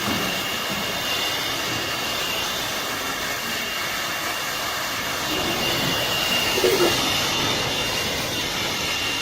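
Oxyhydrogen welding torch flame burning with a steady hissing rush, with a thin steady high whine running through it.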